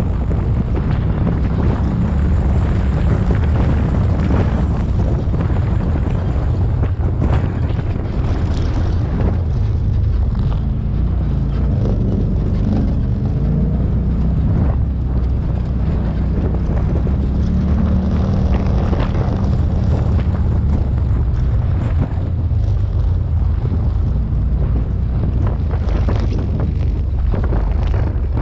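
Off-road vehicle engine running as it drives along a dirt trail, its pitch rising and falling with the throttle, with wind rumbling on the microphone.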